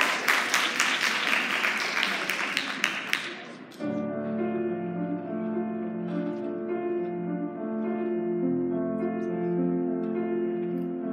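Audience applause dying away, then about four seconds in a slow piano intro begins: sustained notes over low held tones.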